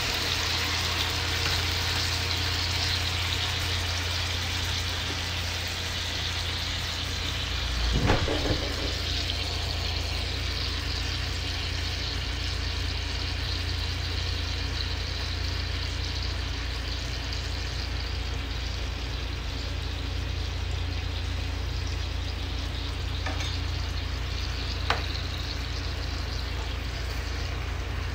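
Salmon fillets sizzling as they pan-fry in a ridged grill pan: a steady frying hiss over a low, even hum. A knock about eight seconds in and a sharp click near the end.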